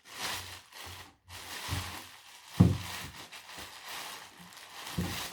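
Packing material being crumpled, torn and rustled while parts are unwrapped from a parcel, with a few short knocks.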